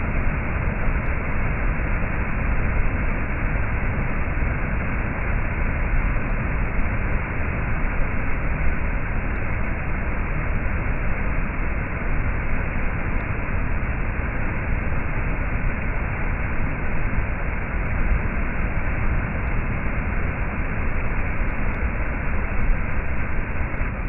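Waterfall and the cascading rocky stream below it, a steady, unbroken rush of falling and tumbling water.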